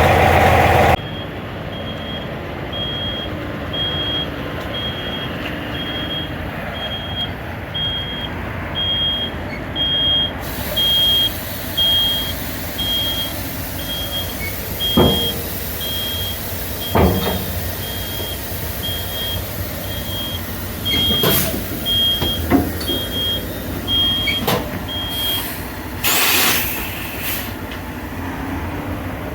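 Backup alarm beeping steadily, about once a second, over the running of heavy vehicles, with a few sharp knocks and clunks in the second half; the beeping stops near the end.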